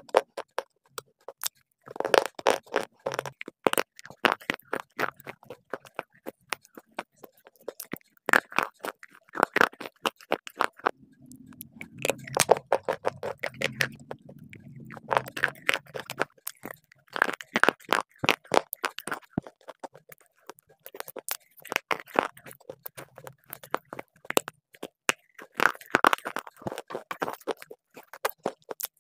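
Close-miked crunching and chewing of hard, chalky slate pencils and shale stone pieces: rapid crisp cracks in bursts, separated by a few short pauses.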